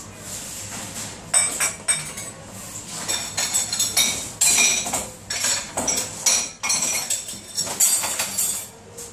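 Crockery clattering and clinking as it is handled and set into plastic dishwasher racks at a commercial dishwashing sink: a dense run of sharp clinks with a bright ring, starting about a second in, over a steady hiss.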